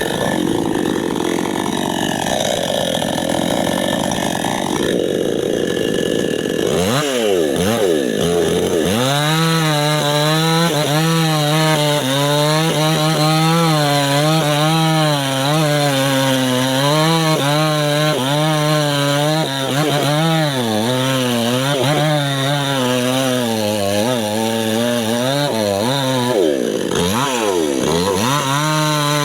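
Mini chainsaw running under load while cutting teak wood, its motor note wavering as it works. Twice, about a quarter of the way in and again near the end, the pitch drops away and climbs back up as the throttle is released and reapplied.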